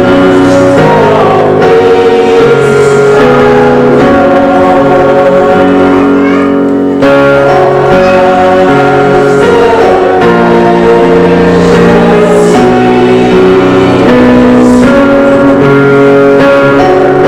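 Church worship music: a song sung with guitar accompaniment, held chords changing about once a second, with a brief dip in level about seven seconds in.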